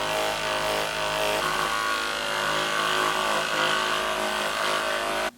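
Hypervolt percussion massage gun running with a steady motorised buzz, then stopping abruptly near the end.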